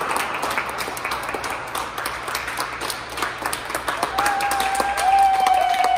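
Scattered hand-clapping applause from performers and audience. About four seconds in, one long, high held call, slowly falling in pitch, sounds over the clapping.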